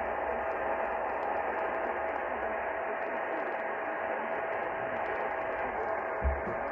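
Radio static: an even hiss with a faint steady tone through it and a low hum that fades out about halfway. A short low thump comes near the end.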